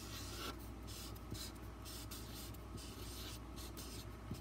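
A black felt-tip marker writing letters on cardstock: a series of short, faint scratching strokes as each letter is drawn, over a steady low hum.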